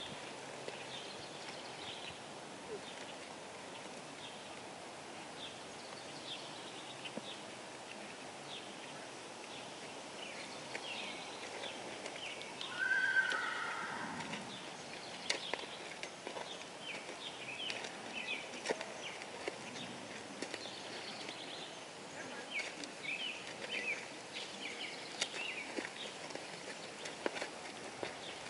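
Quarter Horse hooves on arena sand at a walk and jog, with soft scattered hoofbeats. Birds chirp throughout. A horse whinnies once, about halfway through, the loudest sound.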